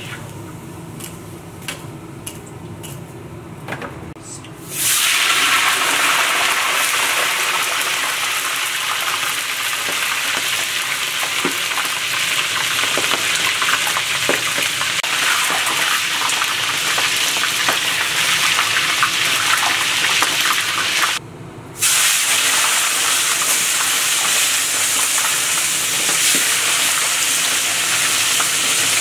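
Chicken pieces frying in hot oil in a kazan: a loud, steady sizzle that starts suddenly about five seconds in, after a few light clicks. The sizzle cuts out for a moment about three quarters of the way through, then carries on.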